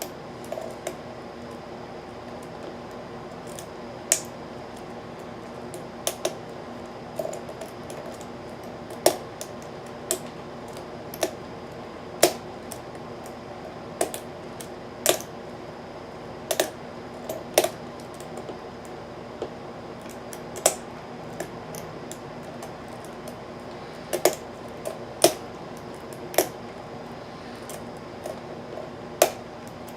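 Lock pick and tension wrench working the pins of a Nu Set five-pin rim cylinder: scattered sharp metallic clicks, irregular and roughly one every second or two, over a steady faint hum.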